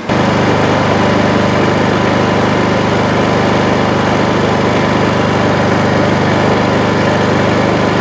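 Honda EU2000i inverter generator's engine running steadily, loud and close.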